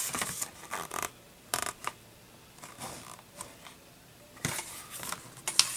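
Glossy pages of a Blu-ray Digibook's bound booklet being turned and handled: a few short paper rustles and light taps in the first two seconds and again near the end, with a quiet stretch in between.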